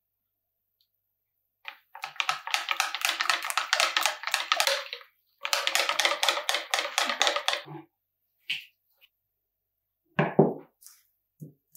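A whisk beating crepe batter in a glass bowl, in two runs of quick strokes, about five a second, with a pause between them. Near the end, a glass bowl is set down on a wooden board with one short knock.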